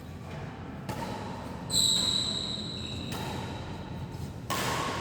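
Badminton rackets striking a shuttlecock in a large hall: a few sharp hits. About two seconds in comes a loud hit with a high ringing ping that fades over about a second.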